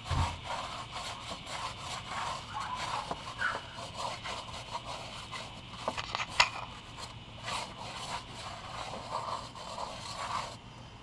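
Stiff tire brush scrubbing a soapy ATV tire sidewall in a run of rough, uneven scraping strokes, with one sharp knock about six seconds in.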